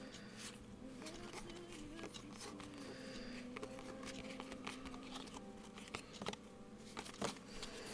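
Baseball cards being flicked through by hand, one sliding off the stack after another, in a run of soft clicks and slides that grows a little louder near the end. Faint music plays underneath.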